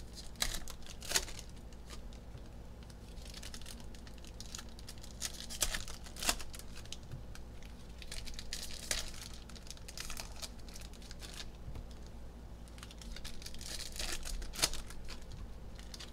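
Foil trading-card packs of Panini Mosaic football being torn open and crinkled by hand, with several sharp rips among irregular crackling, and cards being handled.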